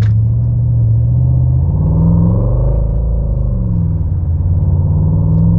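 Simulated Mercedes-AMG GT 63 S twin-turbo V8 engine and exhaust sound played through a car's speakers, its pitch following the car's revs. It is a steady low drone that climbs about two seconds in, drops back, then climbs again near the end.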